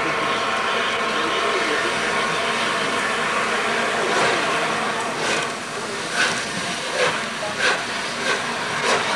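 The Flying Scotsman steam locomotive pulling away, with a steady hiss of escaping steam. About five seconds in, its exhaust chuffs begin, evenly spaced and coming gradually faster.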